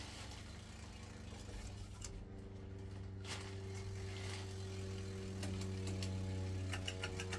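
Electric ceiling fan motor humming, the hum slowly growing louder with extra tones joining about two seconds in, as if the motor is gathering speed; a few light clicks near the end.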